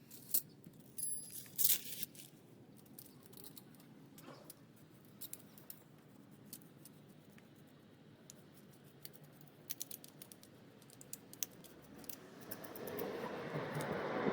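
Scattered light clicks and small metallic rattles of typewriter parts being handled and brushed, a few sharper ones in the first two seconds. Near the end a steady rushing noise builds up.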